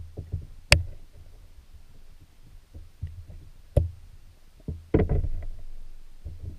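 Muffled knocks and low thumps picked up underwater by a camera beside a submerged wire-mesh minnow trap: two sharp clicks, one about a second in and one about four seconds in, then a short burst of knocking and rustling about five seconds in.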